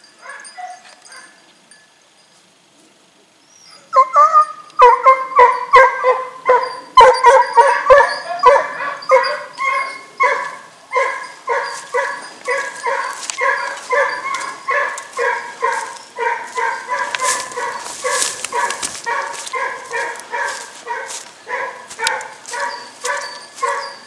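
Hunting dog giving tongue on a scent trail: a rapid, unbroken run of loud barks, about two to three a second, starting about four seconds in.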